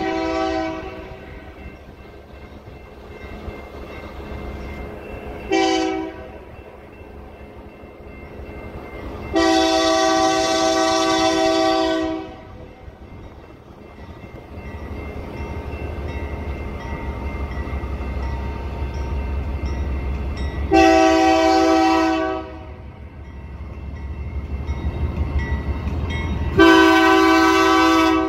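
Nathan K3LA air horn on a BNSF GE Dash 9 locomotive sounding for a grade crossing with an 'elephanting' honk: one blast ends just under a second in, then a short blast, then three long blasts. Between the blasts the locomotives' diesel engines rumble, growing louder as the train approaches, and a crossing bell dings faintly.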